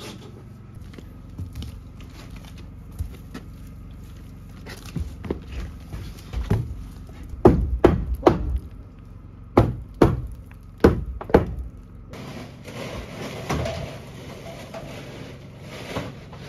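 A run of sharp wooden knocks and thuds as a straw-insulated pallet wall panel is knocked and pushed into place in its timber frame. A few soft knocks come first, then about seven loud ones in quick groups of two or three near the middle.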